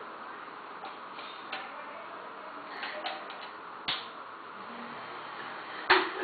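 Quiet room hiss with a few faint clicks. About four seconds in comes a single knock as a small plastic toy guitar lands on the bed, and a louder knock follows near the end.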